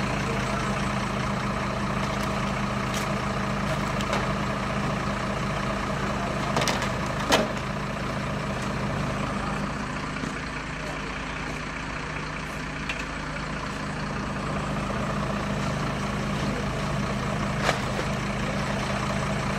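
Fire engine's diesel engine idling steadily, a low even hum. A few sharp knocks cut through it, the loudest about seven seconds in and another near the end.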